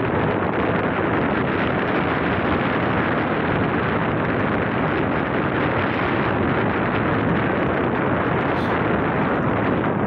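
Steady wind noise buffeting the microphone of a moving motorcycle, an even rush with no change in loudness.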